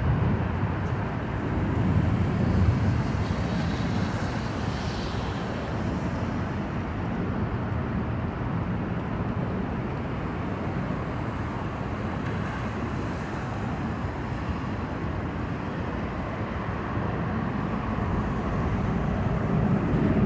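Steady low rumble of city street traffic, growing louder near the end.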